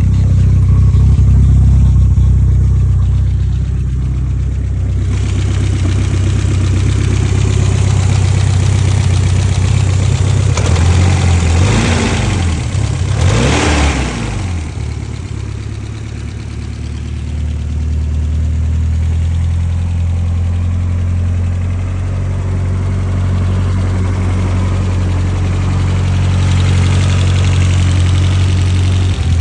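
BMW E30 M3's S14 inline-four engine idling, blipped twice in quick succession about halfway through, the revs rising and falling back each time before settling to idle again.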